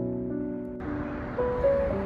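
Soft background music of slow, sustained notes, with a steady hiss of outdoor ambience coming in under it about a second in.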